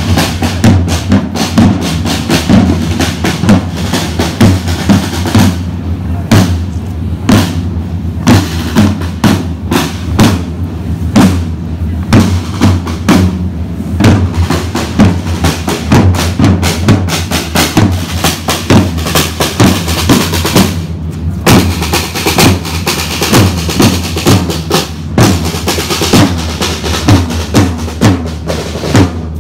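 Parade drummers beating side drums in a marching procession, a steady beat of repeated strikes.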